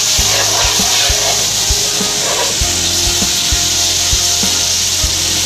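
Milk sizzling as it is poured into a hot butter-and-flour roux in a pan, with a spoon scraping and rubbing against the pan as it is stirred. Background music with a steady beat plays underneath.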